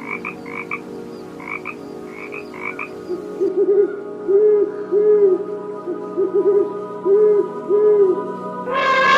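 Animal calls from a sound compilation: quick paired croak-like calls for about three seconds, then a series of short low hooting calls, then a long falling call beginning near the end, over a steady low hum.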